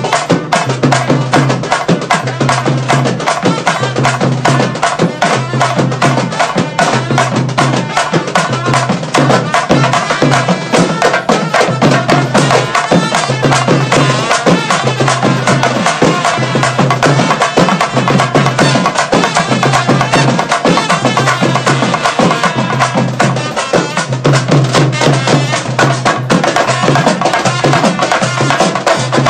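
Background music with a busy percussive beat over a repeating bass line.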